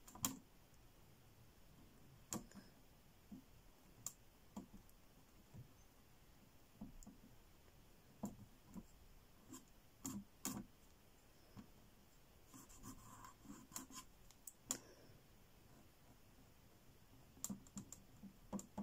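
Faint, irregular small clicks and scratches of a fine paintbrush dabbing and stroking acrylic paint onto a painting board, with a short soft scratchy stretch about two-thirds of the way through.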